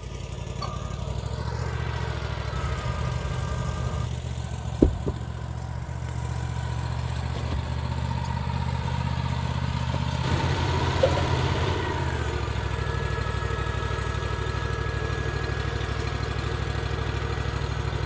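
Wood-Mizer LT40 sawmill's engine running steadily at idle, with a sharp knock about five seconds in and a faint high whine near the start and again in the second half.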